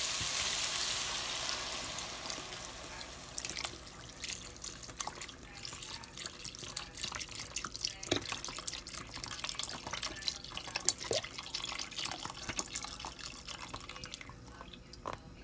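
Chicken stock poured into a hot pot over sautéed chicken, pasta and vegetables: a hiss that dies away over the first few seconds, followed by scattered small pops and ticks as the liquid settles and heats.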